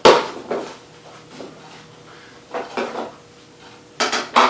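Short knocks and clatters of hard parts being handled: one at the start, a couple about two and a half seconds in, and two more near the end.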